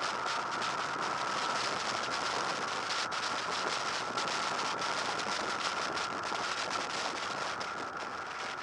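Wind rush and road noise on a camera mounted on a Honda VFR800 VTEC motorcycle at riding speed, a steady roar with crackling wind buffeting and a constant high whine, easing off slightly near the end.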